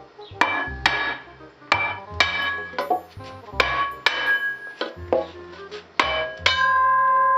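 Hammer blows on a three-piece BBS RS wheel, about a dozen sharp metallic strikes at an uneven rate of roughly two a second. The last strike leaves the wheel ringing steadily. The wheel is being hammered around to knock the center loose from the barrel.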